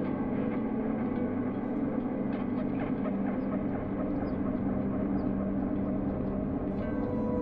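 Ambient background music: sustained low drone tones held steadily, with a higher tone entering near the end.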